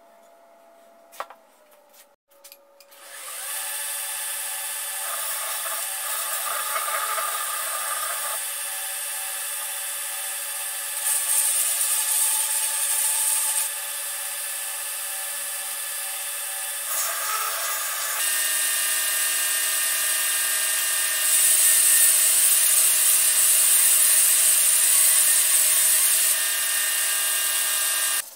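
Belt grinder starting up about three seconds in and running with a steady whine, grinding a wooden axe handle against the sanding belt. The sanding hiss gets louder in spells as the wood is pressed harder into the belt, and the sound cuts off abruptly at the end.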